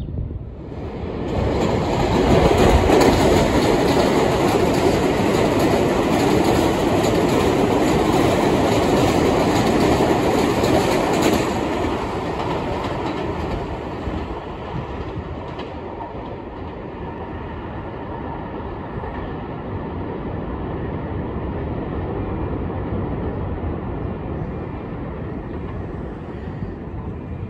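New York City Subway 3 train of R62 cars passing close by on the track below, its wheels clattering over the rail joints. It rises suddenly about a second and a half in, stays loud for about ten seconds, then fades to a lower rumble as the train runs off down the line.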